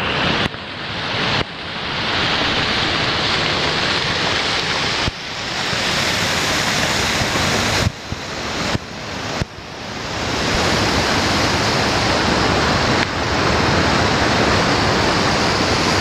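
Waterfall close up: a sheet of water pouring over a ledge and crashing into whitewater, a loud, steady rush heard right beside the falling water. The level drops suddenly several times in the first ten seconds and builds back up each time.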